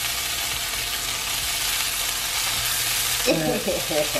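Plant-based bacon strips sizzling steadily as they fry in a skillet. A voice starts speaking near the end.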